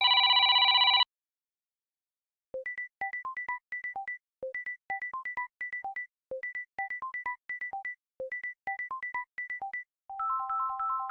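Samsung Galaxy phone ringtones playing one after another. A buzzy electronic tone lasts about a second and stops. After a short pause comes a repeating melody of short electronic beeps, one low note followed by quicker higher ones, the phrase coming round about every two seconds. Near the end a new chiming tone of held notes begins.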